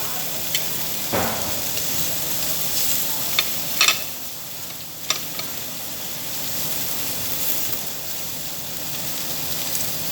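Meat sizzling on a Korean barbecue grill, a steady hiss, with a few sharp clicks scattered through it.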